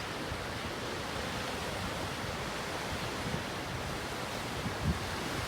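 Ocean surf washing steadily on the shore, with low bumps of wind on the microphone near the end.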